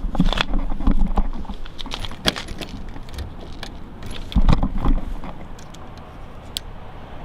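Car key and keyring rattling with irregular metallic clicks as the key is jiggled back and forth in a jammed car door lock, working graphite into the lock cylinder; the lock does not free up. A low rumble runs underneath.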